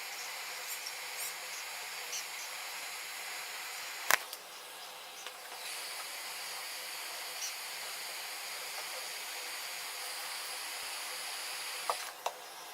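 Steady hiss of a hot-air rework station blowing while controller chips are soldered onto a motherboard. There is a sharp click about four seconds in and two small clicks near the end.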